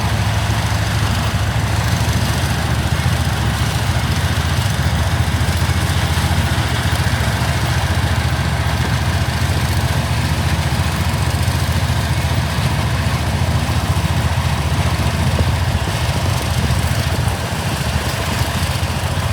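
Engine of vintage harvest machinery running steadily, a low, even firing rhythm.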